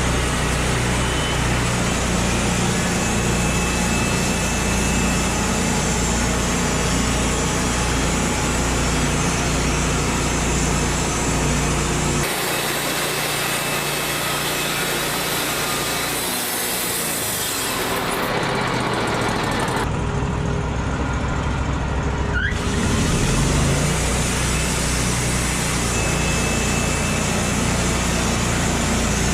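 Engine-driven sawmill machinery running steadily, a motor under load with cutting noise, changing abruptly several times, about 12, 18, 20 and 22 seconds in.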